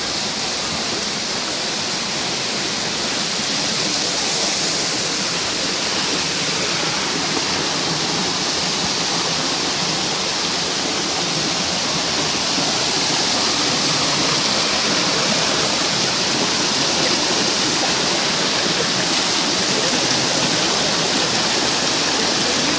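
Waterfall: water falling and splashing in a steady, unbroken rush, a constant hiss that stays strongest in the higher range.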